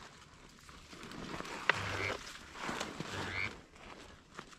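Two raspy mallard quacks about a second apart, each ending on a short rising note, with a sharp click just before the first.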